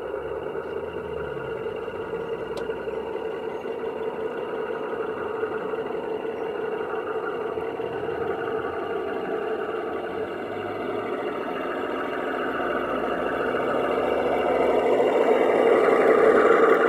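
O gauge model of a Class 53 diesel locomotive running along the garden railway track, with a steady engine-like running sound. It grows louder over the last few seconds as the locomotive comes up and passes close by.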